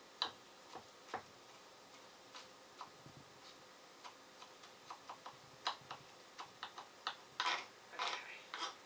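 Kitchen knife chopping a garlic clove finely on a cutting board: irregular sharp taps, with a louder flurry of strokes near the end.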